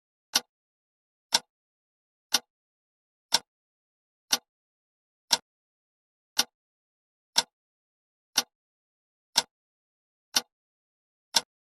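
Clock ticking, one sharp tick a second with silence between the ticks.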